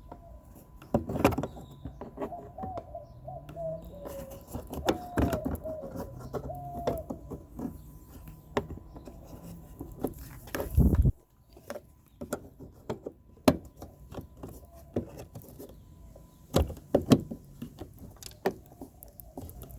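Clicks, knocks and small rattles of hands fitting a turn-signal bulb socket and plastic taillight parts back into a Dodge Challenger's rear light, with one heavier thump about eleven seconds in.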